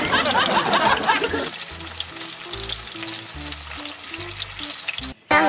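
Sausages deep-frying in a pan of hot oil: a dense, crackling sizzle that cuts off suddenly near the end. Soft background music with low notes plays under it.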